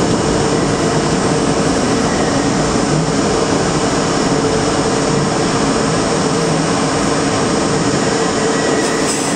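New York City subway train running along a station platform, heard from inside the front car: steady wheel-and-rail running noise with a held motor hum.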